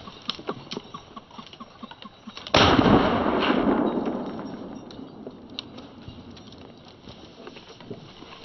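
A single shotgun shot, one sharp report that rolls away and fades over about a second and a half.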